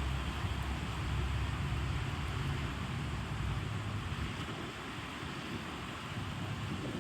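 Steady rain hissing, with a low rumble underneath for the first few seconds that fades about halfway through.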